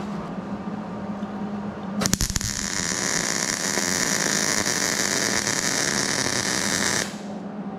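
MIG welder arc tacking a new 18-gauge steel patch onto car body sheet metal: the arc strikes about two seconds in with a few crackles, then runs as a steady sizzling hiss for about five seconds and cuts off abruptly.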